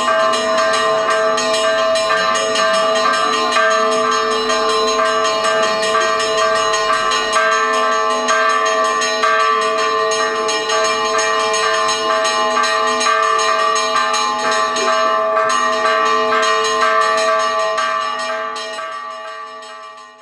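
Church bells ringing continuously in quick, repeated strokes, several bell tones sounding together, fading away at the end.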